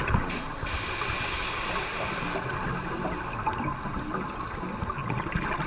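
Underwater bubbling and hiss of scuba divers' exhaled air streaming from their regulators, with an irregular crackle of bubbles.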